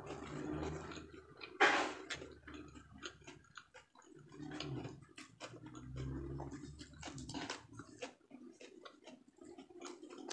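Close-up eating sounds: chewing and mouth clicks, with a steady run of crisp crackles from fresh lettuce leaves being torn and folded by hand, and one louder crackle about two seconds in.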